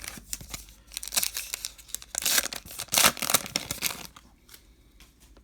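Wrapper of a baseball card pack being torn open and crinkled: a dense crackling, loudest in two spells around the middle, dying away about a second before the end.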